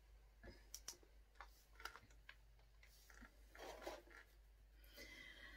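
Near silence with a few faint clicks and a soft rustle, as of small things being handled.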